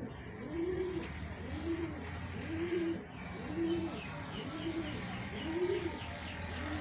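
A domestic pigeon cooing in a steady rhythm, one low rising-and-falling coo about every second, seven in all.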